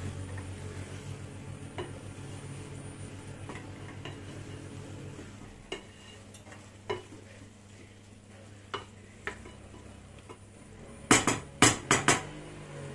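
A spoon stirring cooked shredded cabbage in a pot, with scattered light clicks of the spoon against the pot. About eleven seconds in comes a quick run of five or six loud metal clanks against the pot.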